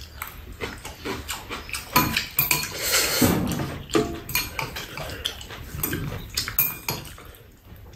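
Metal chopsticks clicking and scraping against noodle bowls, with noodles being slurped and chewed.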